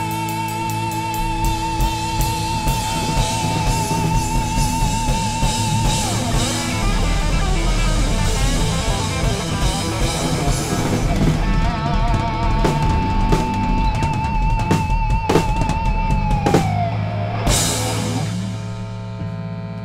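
Instrumental rock jam on drum kit, two guitars and bass guitar. The lead guitar holds long singing notes with vibrato, then bends one down a little before the music fades out near the end.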